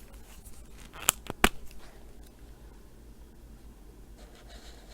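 Two sharp plastic clicks about a third of a second apart, about a second in, typical of an alcohol marker's cap being pulled off; otherwise only faint room noise.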